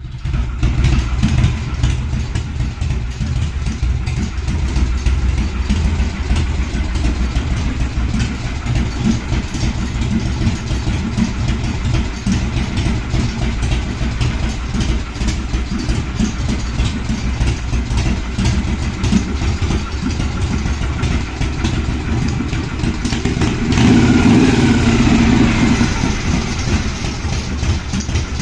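Motorcycle engine idling steadily, growing louder for about two seconds near the end with a brief change in pitch.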